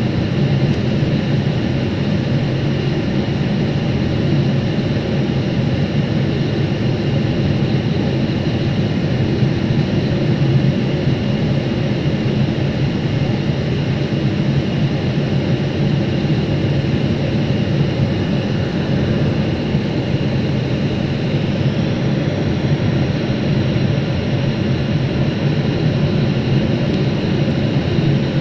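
Steady cabin noise of a jet airliner in flight, heard from a window seat: the drone of the turbofan engines and rushing air, heaviest in the low end, with a faint high whine over it.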